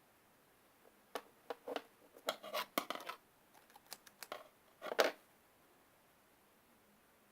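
Scissors snipping, a run of short crisp cuts from about a second in until about five seconds in, the last cut the loudest, as a squishy toy is cut open.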